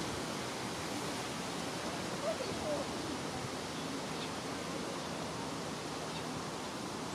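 Steady outdoor background hiss, with two faint short chirps a little over two seconds in.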